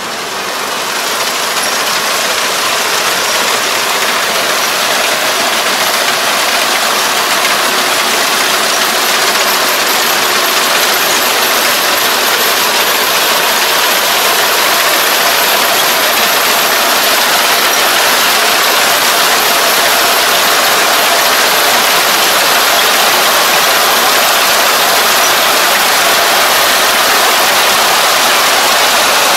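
Kubota four-row combine harvester running while it cuts and threshes rice, a steady dense mechanical din of engine and threshing gear. It gets louder over the first several seconds as the machine comes closer, then holds steady.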